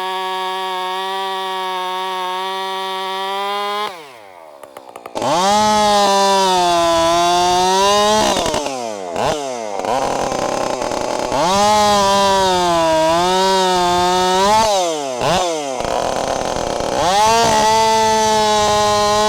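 Two-stroke chainsaw at full throttle cutting through a log: its pitch sags as the chain bites and climbs again as it frees, with a few quick drops in revs between cuts. Before that there is a steady, even drone for about four seconds, then a short lull.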